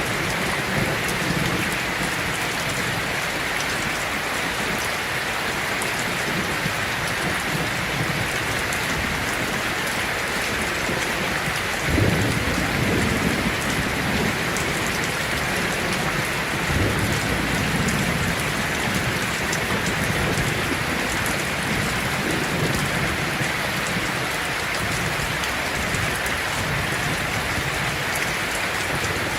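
Heavy rain falling steadily on a tin roof, with thunder rumbling low beneath it: one roll starts sharply about twelve seconds in and another comes around seventeen seconds.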